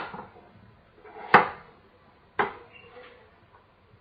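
Kitchen knife slicing through a peeled apple and knocking on a wooden cutting board: two sharp knocks about a second apart, the first about a second in.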